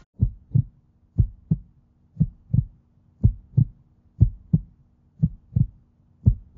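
Heartbeat sound effect: pairs of short low thumps, lub-dub, about one beat a second, over a faint steady hum.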